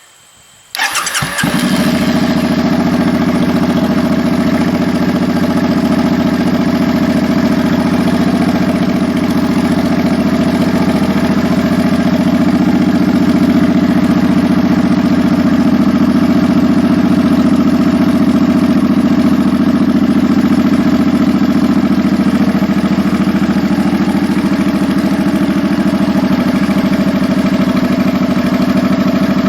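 Suzuki M50 Boulevard's V-twin engine cranked on the starter and catching about a second in, then idling steadily on the newly replaced battery.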